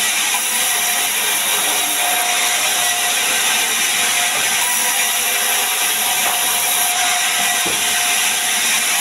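Large sawmill band saw running steadily and cutting through a timber slab: a loud, continuous hissing whir with a faint whine.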